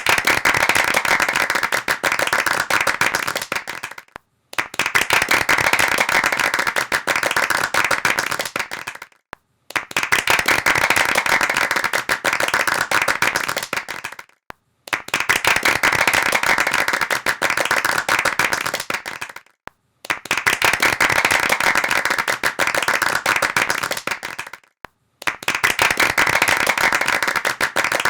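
Rapid hand clapping, like applause, in repeated takes of about five seconds. Each take fades away at its end and is followed by a brief silence, about six takes in all.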